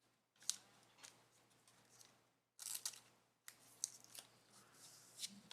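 Faint rustling and clicking of trading cards being slid into plastic sleeves, with a few sharp ticks and a longer scraping rustle about three seconds in.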